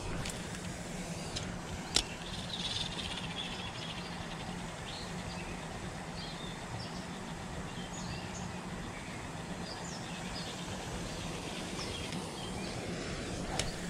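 Outdoor ambience with small birds chirping on and off over a steady low hum. A single sharp click sounds about two seconds in.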